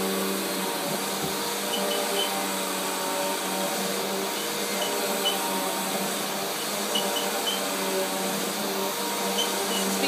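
Vacuum cleaner running steadily, an even motor hum with a whooshing airflow noise.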